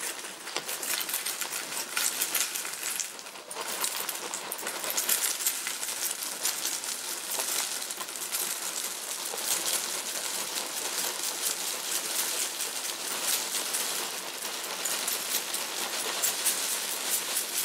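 Cornflakes poured in a continuous stream from a cardboard box, falling into a glass of milk and onto a tabletop where they pile up: an unbroken stream of tiny dry ticks and crackles.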